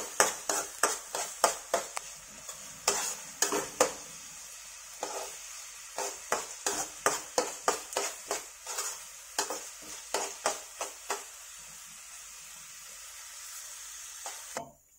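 Chopped onions frying in hot oil in a nonstick pan with a steady sizzle, as they sauté toward golden brown. A utensil stirring them scrapes and taps the pan in bouts of about three strokes a second; the stirring stops about eleven seconds in, leaving only the sizzle, which cuts off suddenly near the end.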